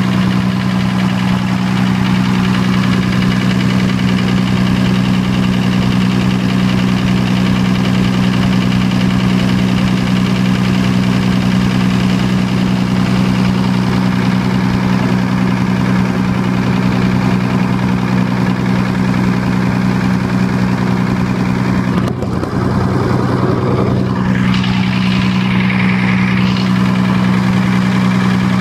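Diesel generator set's engine running steadily at a constant speed, a loud even drone. About three quarters of the way through, the sound briefly dips and wavers.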